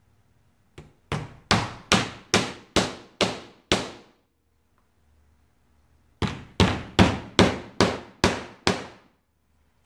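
Hand hammer striking a piece of the wooden jig in a steady rhythm: a light tap, then seven hard blows at about two and a half a second, a pause of about two seconds, then seven more.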